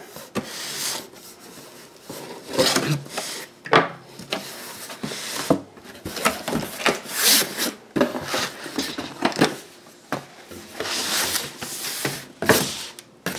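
Cardboard shipping box being opened by hand: flaps pushed back and an inner product box slid out, a run of irregular cardboard scrapes and rubs.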